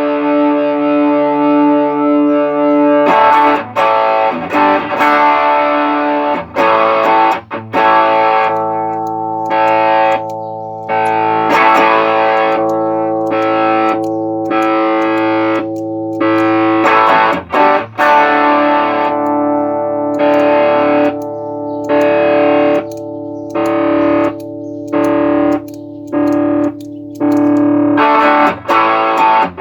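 Electric guitar played through an Ibanez Tube Screamer TS808 overdrive pedal, giving an overdriven tone that shows the repaired pedal working. Sustained chords ring out, and from about eight seconds in many are choked off with short pauses between them.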